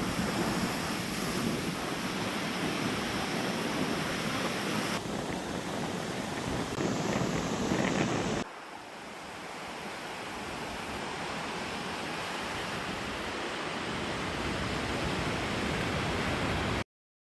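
Lake waves washing on the beach, mixed with loud wind buffeting the microphone. About halfway through the sound drops suddenly and then builds back, and it cuts off abruptly just before the end.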